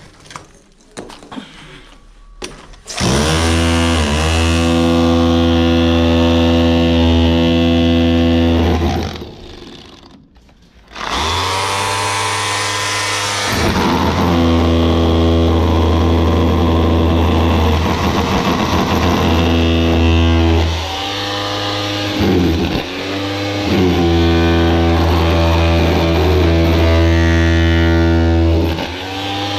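Handheld electric power tool breaking out concrete blocks, run in several bursts that each start with a rising spin-up and hold a steady, loud running note, with a pause of about two seconds near the middle. The first few seconds hold only light knocks and clicks of rubble being handled.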